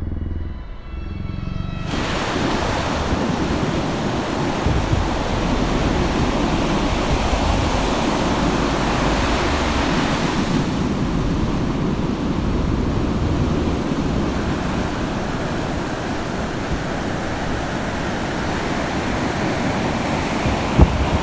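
Ocean surf: waves breaking and washing over rocks, a steady rush of water that comes in about two seconds in. A short sharp knock near the end.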